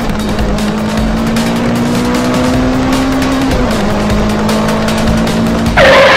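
Dubbed-in race-car engine sound effect, the engine note slowly climbing and then stepping down about three and a half seconds in, like a gear change, over background music with a steady beat. A short, loud screech comes near the end.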